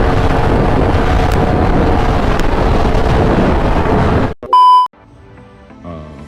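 Yamaha R1 sport bike's engine and exhaust running loudly for about four seconds, cut off by a short, loud censor bleep, then faint background music.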